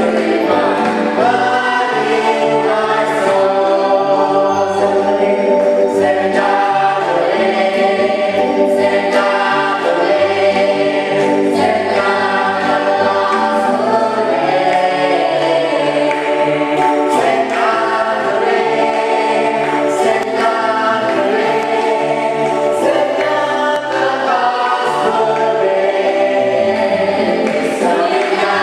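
A group of voices singing a gospel hymn together, with sustained notes moving steadily through the melody and no breaks.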